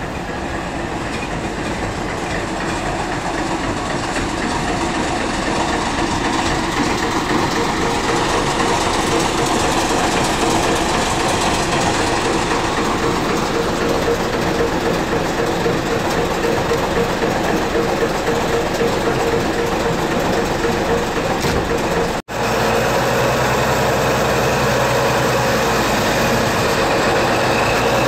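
The diesel engine of a 1975 Jelcz 021 articulated city bus running steadily while the bus stands still. It grows louder over the first several seconds, then holds steady, with a split-second break about three-quarters of the way through.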